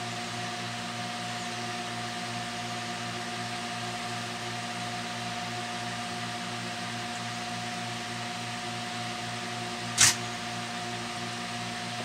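Steady mechanical hum with several steady tones, broken once about ten seconds in by a single sharp tap.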